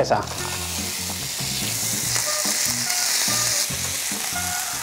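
Raw ground-beef burger patties sizzling in oil on the hot plate of an electric contact grill, a steady hiss that is strongest through the middle and eases near the end.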